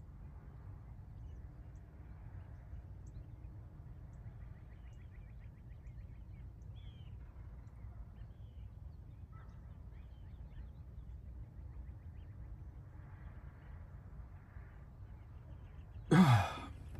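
Quiet outdoor morning ambience heard through open car windows: a steady low rumble of distant road traffic with scattered faint bird chirps. About 16 seconds in, a short loud exhale with falling pitch as a held breath is let out.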